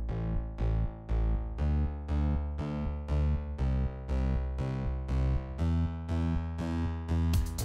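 Background music: short repeating notes, about three a second, that die away over a deep bass. A beat with drums comes in near the end.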